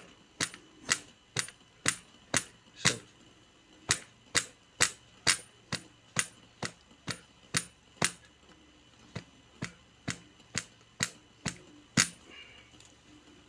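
A capped bottle of liquid shaken hard by hand to mix a drink, each shake giving a sharp knock, about two a second. There is a short break about three and a half seconds in and another about eight seconds in, and the shaking stops about twelve seconds in.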